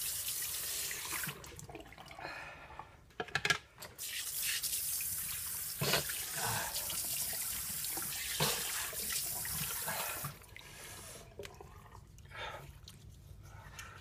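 Tap water running into a sink while hands splash water onto the face to rinse it. The flow drops for a couple of seconds with a few clicks, runs again, then stops about ten seconds in, leaving scattered splashes and drips.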